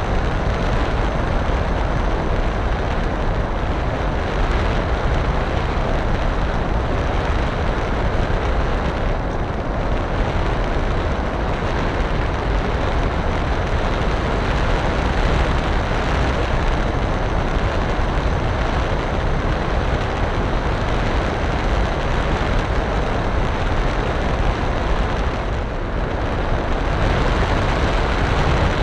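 Steady, loud rushing roar of wind buffeting the onboard camera's microphone on an RC model aircraft in flight, heavy at the low end and unchanging throughout.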